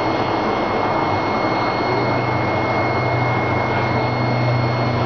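Steady hiss of aquarium aeration: air bubbling up through sponge filters in a fish tank. Under it runs a low hum that grows stronger about two seconds in, with a faint steady high whine.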